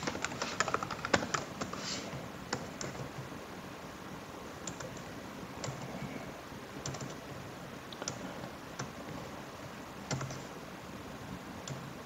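Typing on a computer keyboard: a quick run of keystrokes in the first two seconds, then scattered single clicks.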